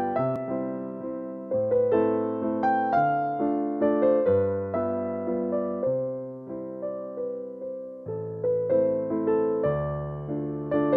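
Background piano music: a gentle melody of struck notes and chords, each fading away before the next.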